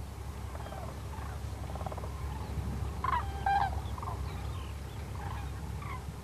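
Common cranes calling in flight: scattered short trumpeting calls, a cluster of louder ones about three seconds in, over a low steady rumble.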